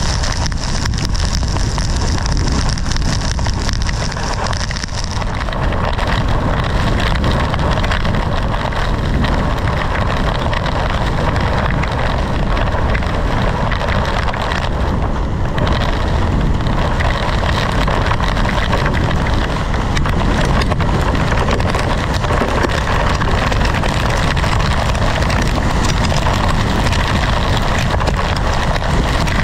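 Marble- to half-dollar-sized hail and wind-driven rain pelting the vehicle, a steady dense rattle of impacts, with wind noise on the microphone.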